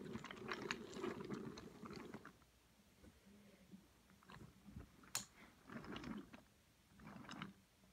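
Wooden toy trains pushed by hand along wooden track: a faint rattling rumble of wheels over the track for about two seconds, then scattered clicks and clacks as the engines are moved and knock together.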